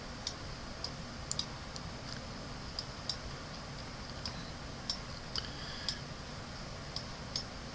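Light, irregular clicks, roughly two a second, from the input device used for painting as brush dabs are laid onto the canvas, over a faint steady hiss of room tone.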